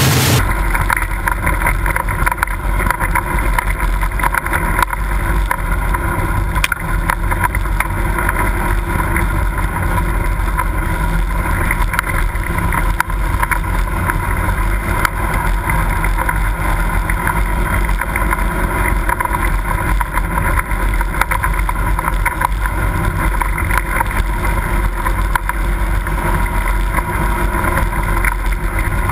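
Off-road vehicle engine running at a steady speed, heard from a camera on its hood, with wind noise on the microphone.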